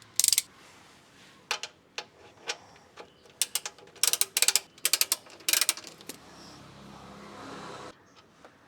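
Socket ratchet wrench clicking as the 14mm oil drain plug on a Toyota Qualis diesel is worked loose: a few sharp clicks, then scattered clicks, then quick runs of ratcheting about halfway through.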